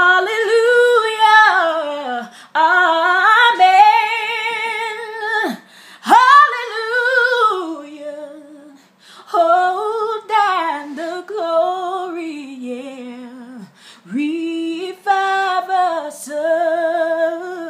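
A woman singing gospel a cappella: five long phrases of held notes with vibrato and sliding runs, with short breaths between them.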